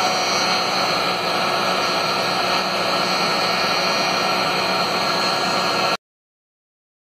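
Steady whirring hiss of the Maslow CNC's router running, with no clear pitched whine. It cuts off abruptly about six seconds in.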